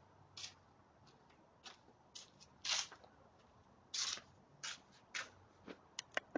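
About ten short, irregular rustling and scraping noises, the loudest about three and four seconds in.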